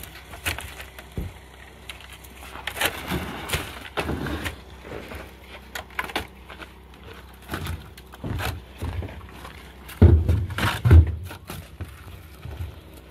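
Plastic crates and spiny lobsters being handled: scattered knocks and clatter, with two heavier low thumps about ten and eleven seconds in.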